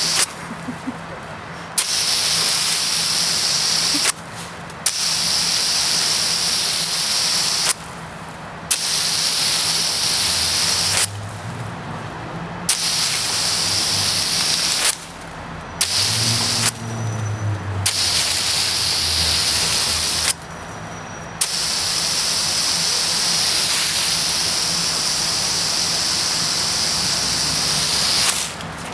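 Garden hose water jet hissing in spurts, cut off and turned back on about seven times, then running without a break for the last several seconds.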